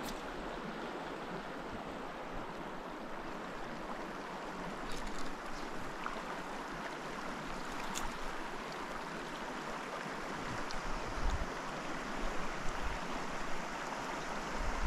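Shallow creek running over gravel riffles: a steady rush of flowing water, with a few low gusts of wind on the microphone in the second half.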